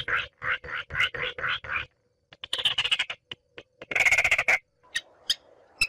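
Baillon's crake calling: runs of short, dry notes about six a second, a pause, another run, then a brief dense rattle about four seconds in, followed by a few scattered clicks.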